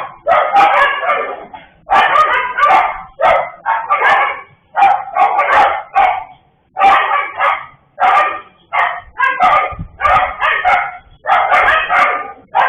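Dogs barking over and over, loud bursts coming about once a second with short gaps between them.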